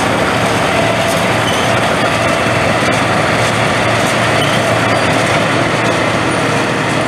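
Old combine harvester running steadily at work in the field, a constant loud mechanical noise that does not let up.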